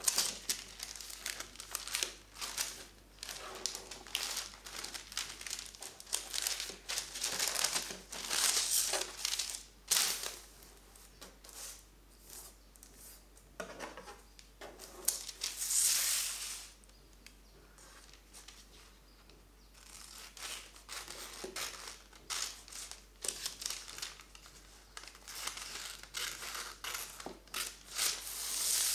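Baking parchment being folded, creased and smoothed flat by hand, crinkling and rustling in irregular bursts, with a quieter pause about two-thirds of the way through. Scissors begin cutting the paper near the end.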